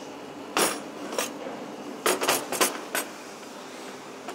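Cutlery clinking against a plate while eating: a few separate sharp clinks, then a quick cluster of them about two seconds in.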